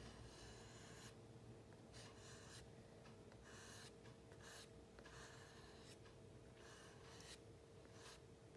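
Faint scratchy strokes of vine charcoal rubbing over drawing paper, a stroke or two each second in an uneven rhythm, blending compressed charcoal, over a faint steady hum.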